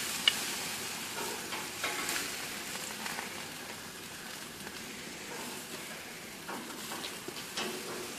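Meat and pineapple rings sizzling on hot gas-grill grates: a steady frying hiss. A few light clicks of metal tongs are heard along the way.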